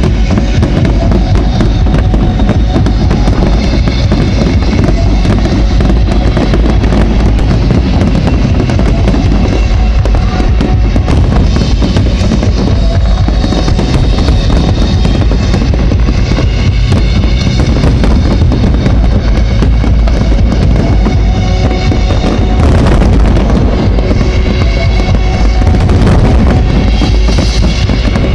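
Pyromusical fireworks display: a dense, continuous run of firework bangs and crackles over loud music. It grows a little louder about three-quarters of the way through.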